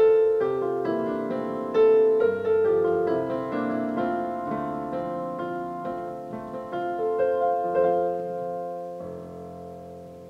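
Yamaha Clavinova digital piano playing a chordal piece in piano voice, one struck note or chord about every half second. A last chord about nine seconds in is held and dies away.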